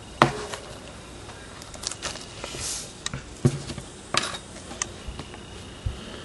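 Sealed trading-card packs being handled: a scatter of sharp clicks and taps, with a brief crinkle of the plastic wrapping a little before the middle.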